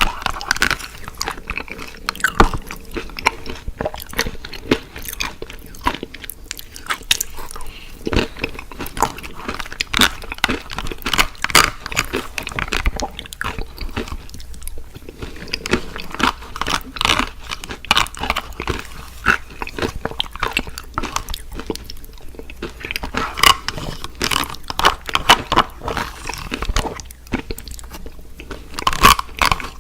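Close-miked mukbang eating sounds: a person biting and chewing crunchy fried food, with irregular crisp crackles and wet mouth sounds.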